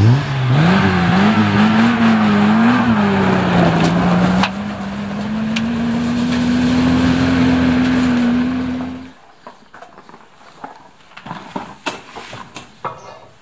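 Volvo TGB 13 off-road truck's B30 straight-six engine running under way, its pitch rising and falling for the first few seconds and then holding steady. About nine seconds in it cuts off suddenly, leaving quiet clinks of metal parts handled on a workbench.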